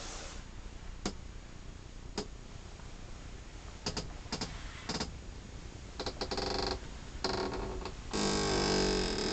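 Handling noise: scattered sharp clicks and knocks, then a louder creak lasting about a second near the end.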